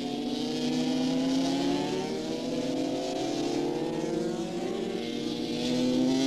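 Road-racing motorcycle engines running at high revs, their pitch climbing steadily twice, loudest near the end.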